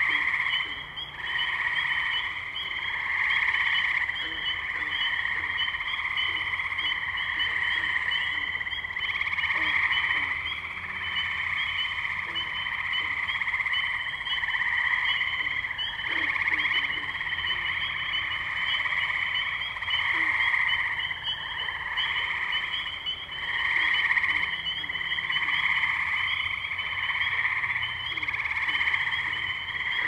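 A dense chorus of tree frogs, many overlapping trilled calls merging into a continuous drone that swells and fades in waves every few seconds, with rapid short high notes over it.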